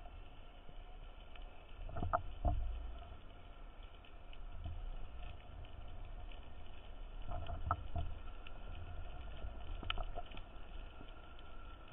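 Underwater ambience picked up by a camera in a waterproof housing: a steady low rumble with faint scattered clicks. A few dull knocks stand out about two seconds in, twice more around seven to eight seconds, and once near ten seconds.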